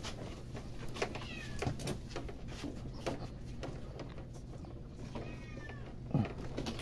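Short animal calls, twice, among scattered clicks and knocks.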